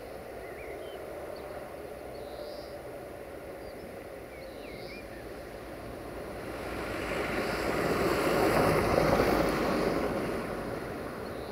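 VT 624 diesel railcar drawing near and passing, its engine and wheels on the rails swelling to a peak about eight to ten seconds in, then easing off. A few birds chirp during the quieter first half.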